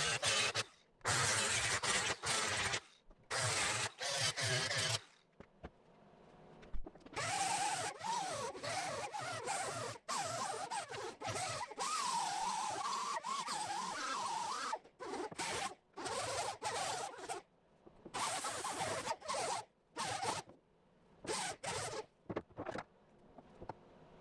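Welder laying tack and stitch welds on the sheet steel of a 1971 Dodge Demon body, in many short stop-start bursts of crackling hiss. A longer continuous run in the middle carries a wavering whine.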